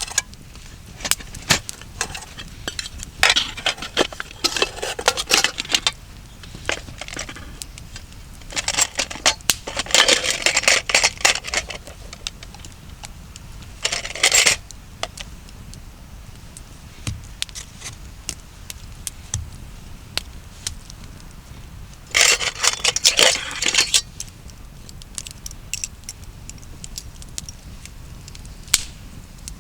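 Handling noise in several separate bursts of scraping and light clinking, each lasting from under a second to a few seconds, with quiet gaps between.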